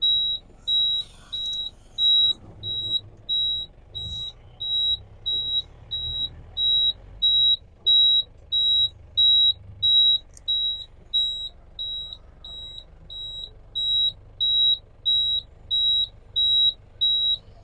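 An electronic beeper sounding one high steady beep a little under twice a second, without a break, over a faint low rumble from the jeep's Mahindra Bolero turbo engine.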